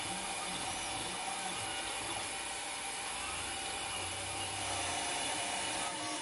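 FDM 3D printer running a print: its stepper motors whir in changing pitches as the print head moves, over a steady high hiss.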